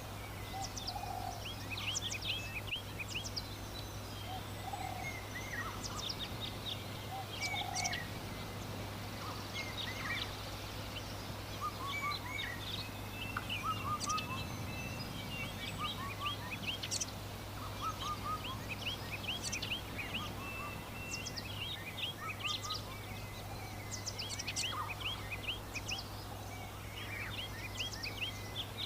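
Rural summer afternoon birdsong: many small birds chirping in quick, short notes, with a few lower calls every couple of seconds in the first half, over a steady low hum.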